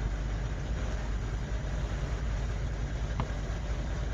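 Third-generation Range Rover's engine running steadily at low speed as the stock SUV crawls over a rocky, rutted off-road trail.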